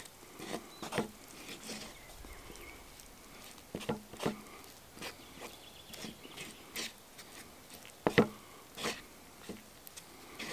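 Wooden spoon stirring and scraping sticky flour dough in a carved wooden bowl: irregular soft knocks and scrapes of wood on wood, with a few sharper knocks near the end.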